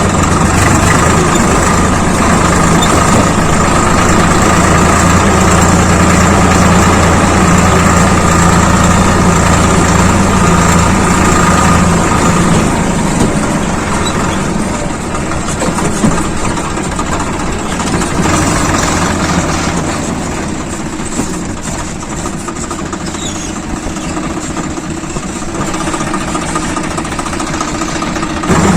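Swaraj 855 FE tractor's three-cylinder diesel engine running steadily. It is loud at first and becomes quieter and less even from about halfway through.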